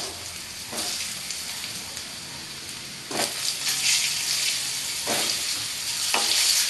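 Boiled potato pieces sizzling in hot mustard oil with a cumin-seed tempering in a wok. The sizzle flares up sharply several times as more pieces are dropped in, and grows louder through the second half. Near the end a wooden spatula starts pushing the potatoes around.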